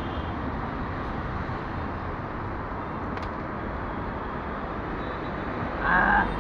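Steady roadside traffic noise from a city street, with a single click about halfway through and a brief voice near the end.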